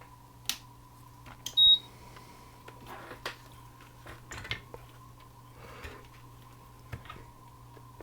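A short, high electronic beep a little under two seconds in, followed by scattered light clicks and handling knocks over a steady electrical hum.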